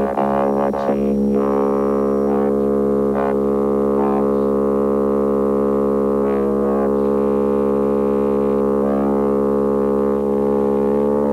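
Electronic synthesizer drone: one low, buzzy tone with many overtones held steady at the same pitch throughout, with a few faint clicks in the first few seconds.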